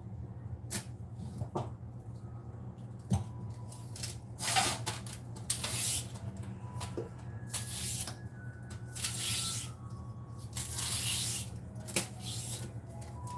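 Short rustling and hissing handling noises with scattered clicks over a steady low hum.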